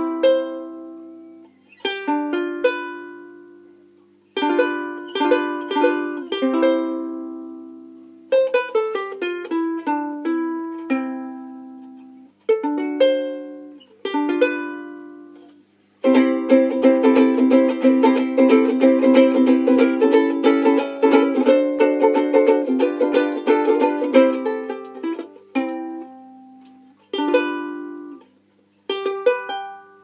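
Handmade koa-bodied soprano ukulele, with a mahogany neck and rosewood fingerboard, being played: chords and picked notes ring out and die away in short phrases. About halfway through, fast continuous strumming for roughly nine seconds, then back to single ringing chords.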